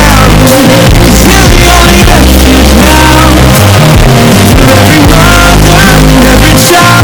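Heavily bass-boosted, clipping rock-pop music with a pounding low bass and a melodic line above it.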